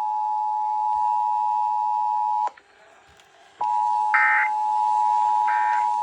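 Emergency Alert System two-tone attention signal from a radio stream, held steady, cutting out for about a second partway through and then resuming. Near the end, two short EAS end-of-message data bursts sound over it, the code that closes the alert.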